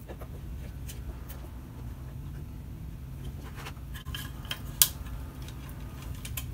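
Light clicks and taps of small plastic parts being handled and fitted into a plastic project box, with one sharper click nearly five seconds in.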